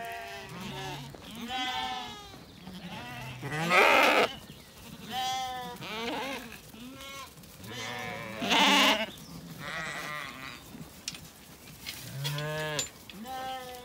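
Zwartbles ewes in a moving flock bleating over and over, several voices overlapping, some calls high and quavering and some deep. The two loudest bleats come about four and nine seconds in.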